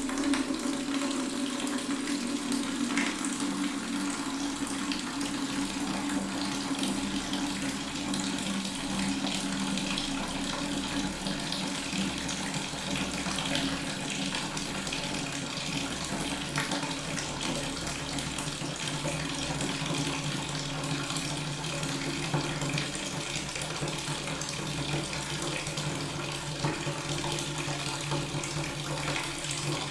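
Water tap running steadily, a continuous splash and gush of water. A low tone within it slowly shifts lower in pitch over the course of the stretch.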